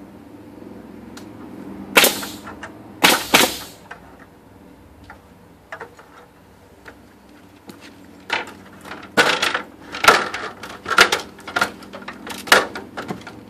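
Nail gun firing nails into a wooden ledger board: two sharp bangs about two and three seconds in, then a run of about half a dozen more shots roughly a second apart in the last five seconds.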